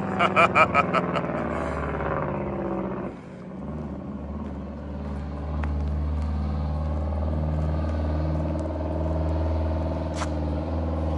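Straight-piped Detroit 8V71 two-stroke diesel of a 1978 Kenworth W900A driving by. A quick run of sharp exhaust pulses comes in the first second, and after about three seconds the engine note drops to a steady, low-pitched run.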